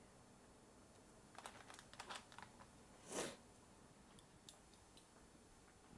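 Mostly near silence, with faint small clicks and taps of kitchen utensils being handled about one and a half to two and a half seconds in, and a brief louder rustle just after three seconds.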